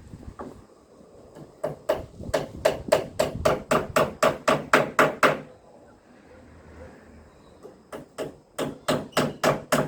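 Hammer blows on wood, a fast even run of about three or four strikes a second, stopping about halfway through and starting again near the end.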